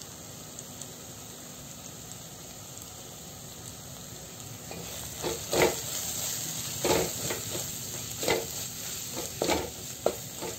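Onion-tomato masala frying in oil in a stainless steel pan with a steady sizzle. About five seconds in, a wooden spatula starts stirring the just-added chilli and coriander powders into it, scraping against the pan roughly once a second.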